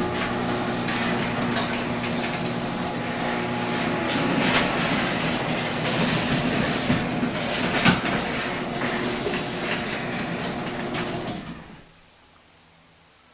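Chamberlain Power Drive heavy-duty chain-drive garage door opener raising the door: the motor hums steadily while the chain and door rattle and clack. It cuts off suddenly near the end as the door finishes opening.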